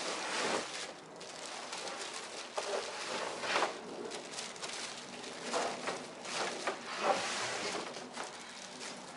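Plastic bags crinkling and rustling in irregular bursts as plastic-wrapped fender flare pieces are handled and pulled out of a cardboard shipping box.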